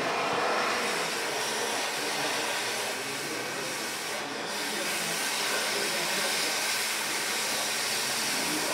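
Oxy-fuel gas cutting torch hissing steadily as it burns through the riveted seam of a steam locomotive's iron smokebox.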